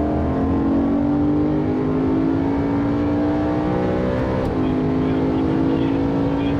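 BMW M3's V8 engine heard from inside the cabin under acceleration on track, its pitch climbing steadily. About four and a half seconds in the pitch steps down sharply at a gear change, then holds and begins to climb again.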